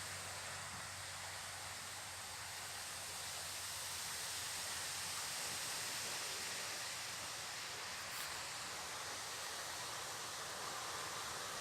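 Wind blowing: a steady, even hiss that swells slightly about four seconds in.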